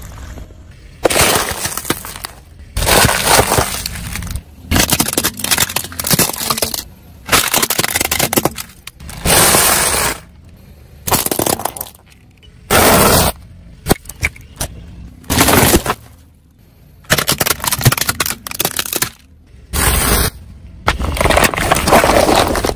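A car tyre rolling over and crushing small objects: about a dozen separate loud crunches, cracks and snaps, each lasting a second or two, with short pauses between them.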